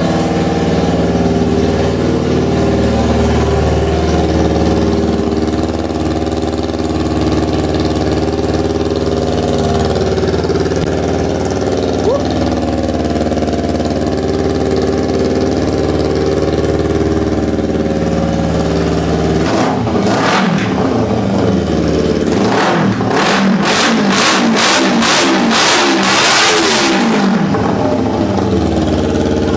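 Kawasaki Ninja 250R's parallel-twin engine running loud with the exhaust silencer removed. It idles steadily, is revved once about two-thirds of the way in, then gets a rapid series of about eight throttle blips before settling back to idle near the end.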